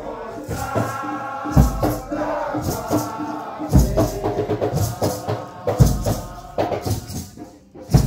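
Nyahbinghi drumming and chanting: a deep bass drum struck about every two seconds, four times, with a shaker rattling and voices chanting together over it.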